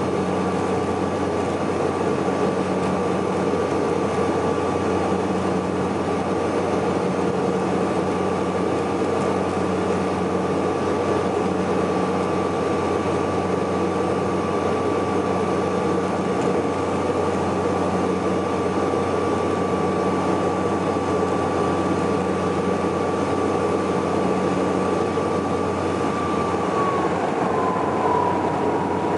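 Cabin noise of a Saab 340B twin turboprop (General Electric CT7 engines with propellers) in flight on descent: a steady engine and propeller drone with an airflow hiss. A high steady whine drops slightly in pitch near the end.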